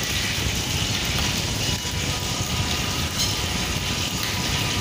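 Steady hissing and bubbling of a pot of soup cooking on a gas stove burner while it is stirred with a spatula.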